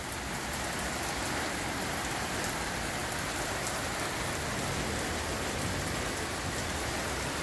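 Heavy rain pouring down steadily in a windy rainstorm, a dense even hiss with scattered drops ticking on surfaces.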